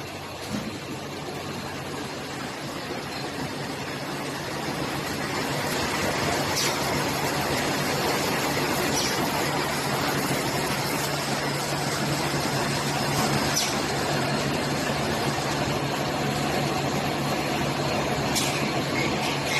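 Silage baling and wrapping machine running with a steady mechanical hum and a constant low drone, plus a few short clicks and clanks from its working parts. The running noise grows a little louder about five seconds in and then holds steady.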